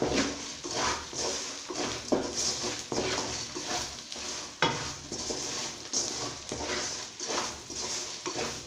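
Spatula stirring and scraping oil-fried brinjal pieces around a metal kadai, with short scrapes and knocks against the pan every second or so over a low sizzle of the oil.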